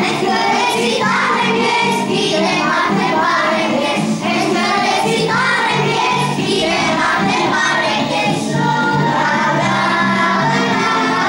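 A class of young children singing a song together in unison.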